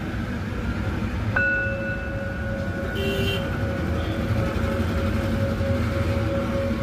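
Machine-made singing bowl struck once about a second and a half in, then ringing on with a steady tone and higher overtones. Under it runs a steady low background rumble.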